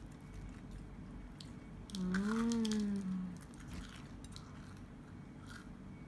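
A girl eating a doughnut, with faint chewing clicks. About two seconds in she gives a single closed-mouth "mmm" hum of enjoyment that rises and then falls in pitch.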